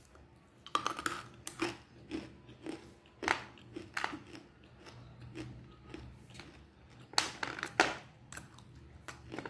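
A person biting and chewing dry chunks of black hole edible clay: short, sharp, irregular crunches, roughly one or two a second, the loudest about a third of the way in and again near the end. The crunching is the sign that the clay is dry and crisp, not damp.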